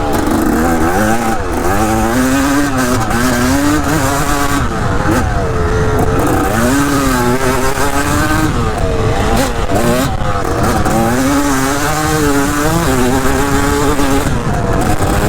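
Dirt bike engine being ridden hard, its pitch rising and falling constantly as the throttle is worked on and off.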